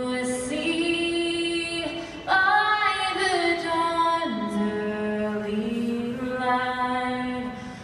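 Female voice singing the national anthem, holding long notes.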